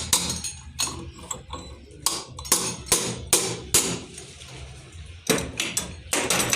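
Hammer striking a magneto flywheel puller: about a dozen light metallic taps at uneven intervals, in small clusters, to knock the magneto rotor loose from its shaft.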